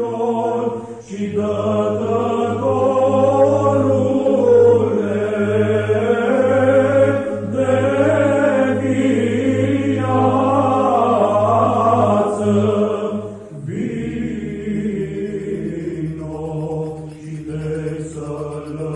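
Orthodox church chant: voices singing a slow, winding melody over a steady low held drone. There is a brief break and a new phrase begins about thirteen and a half seconds in.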